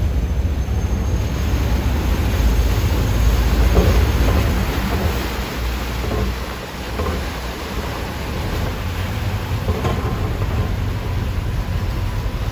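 A ferry boat's engine and propellers working as it docks: a steady deep rumble under the rushing, churning sound of the propeller wash.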